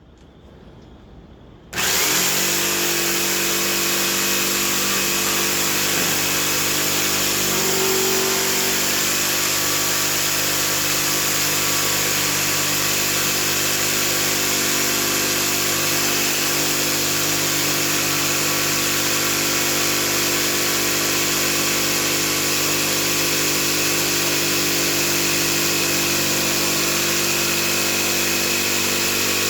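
Electric saw switching on about two seconds in and running at a steady pitch and level while cutting wooden railing pieces out of fence pickets.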